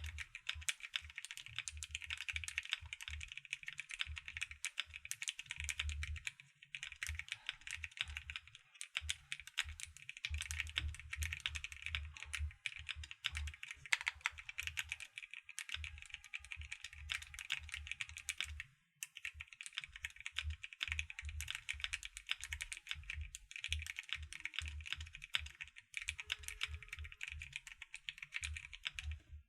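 Fast, continuous typing on an AKKO MonsGeek M1W mechanical keyboard: a dense stream of keystrokes, each with a deep low thud under a brighter click, broken by a few brief pauses.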